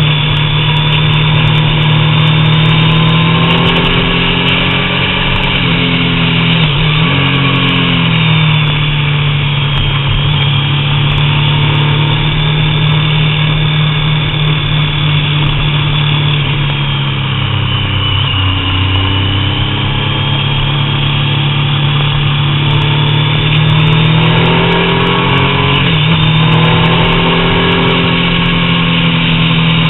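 Triumph Daytona 675's three-cylinder engine pulling steadily at road speed, with wind rushing over the bike-mounted camera. The engine note shifts briefly about seven seconds in and again near the end, and sinks in the middle as the bike slows before climbing again.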